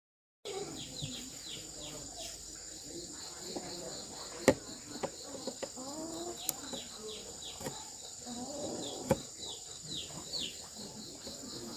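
Rural ambience: a steady high insect drone with a run of short falling chirps, chickens clucking, and a few sharp clicks, the loudest about four and a half seconds in and another near nine seconds. It begins suddenly about half a second in, after silence.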